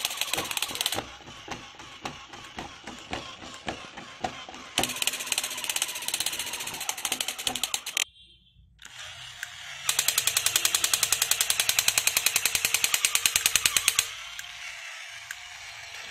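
Battery-operated crawling Spider-Man toy playing its electronic rapid-fire gun sound in bursts, with slower regular clicking from its crawling mechanism between them. After a short drop-out about eight seconds in, a longer, louder burst of the rapid-fire sound runs for about four seconds.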